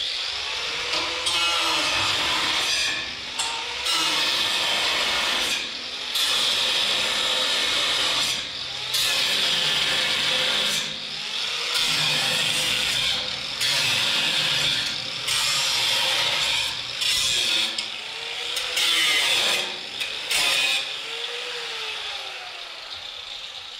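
A power cutting tool cutting out a flatbed's mounting bolts, running in repeated bursts of a second or two with brief pauses between cuts.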